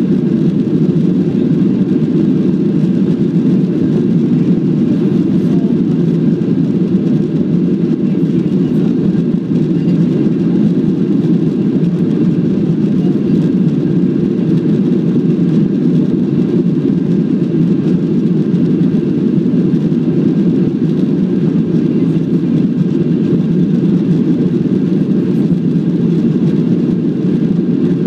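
Steady low rumble of a Boeing 737-700's CFM56-7B jet engines and airframe heard inside the passenger cabin while the airliner taxis onto the runway, with no change in engine power.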